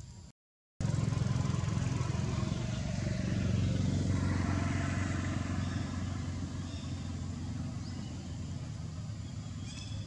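A motor vehicle's engine running steadily with a low hum, growing louder around four seconds in and then easing off as it passes. The sound cuts out completely for about half a second just after the start.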